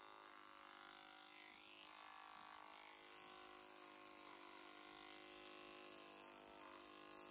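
Cordless electric horse clipper running steadily, faint, as its blade cuts through the horse's coat.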